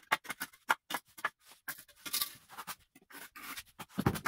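An aluminium rule scraping and tapping across the top of a brick course: a quick, uneven run of short scratchy scrapes, with a heavier knock near the end.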